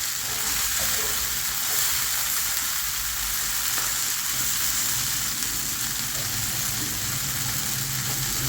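Omena cooked down with tomato and onion sizzling steadily on the heat, the dish finished and ready to serve.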